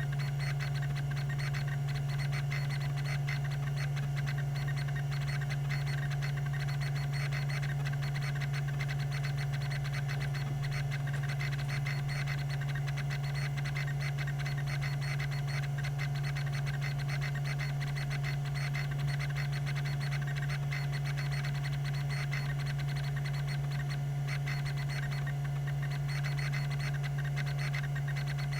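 Tandon TM362 20 MB MFM hard drive running: a steady spindle-motor hum with a thin whine above it, and a fast, even ticking from its rack-and-pinion stepper head actuator.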